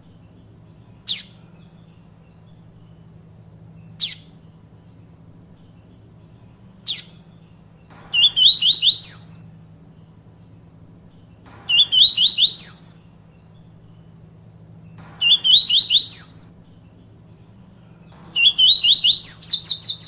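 Papa-capim seedeater singing the 'tui tui viviti' song: three single sharp high call notes about three seconds apart, then four short rapid phrases of quick whistled notes, each about a second and a half long, repeating every three to four seconds. A faint steady low hum runs beneath.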